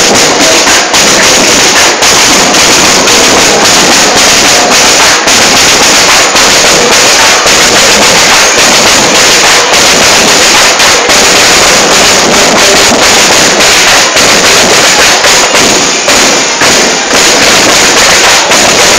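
Marching drum band playing, loud drums and percussion beating continuously.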